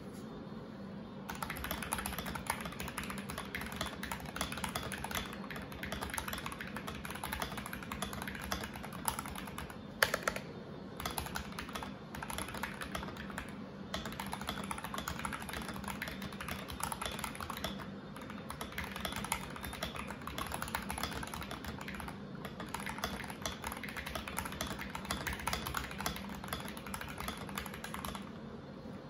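Fast, continuous typing on a mechanical keyboard fitted with Akko OSA-profile keycaps, starting about a second in, with brief lulls and one louder clack about ten seconds in.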